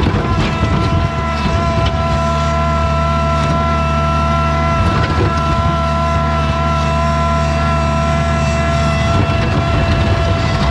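Bobcat skid steer engine running steadily, a constant low drone with a steady higher whine above it.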